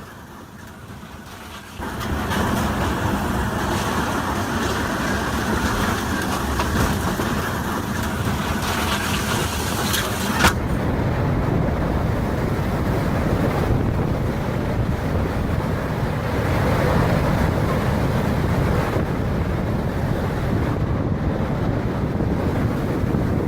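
Storm wind blowing hard and buffeting the microphone: a steady rushing noise, heavy in the low end, that comes in about two seconds in. About ten seconds in there is a sharp click, and after it the upper hiss drops away.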